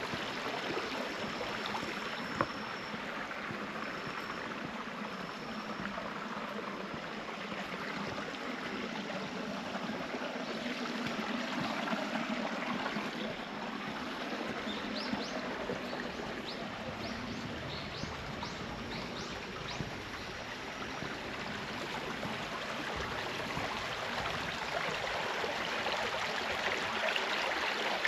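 Clear, shallow mountain stream babbling steadily over rocks.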